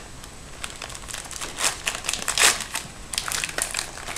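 Wrapper of a hockey card pack crinkling as it is torn open and handled, in a run of irregular crackles, loudest about two and a half seconds in.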